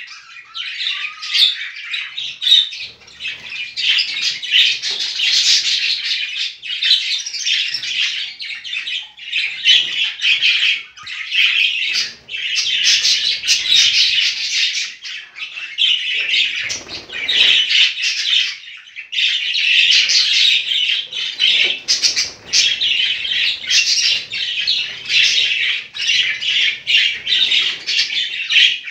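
Budgerigars chattering and chirping in a dense, near-continuous stream of short, high calls and squawks.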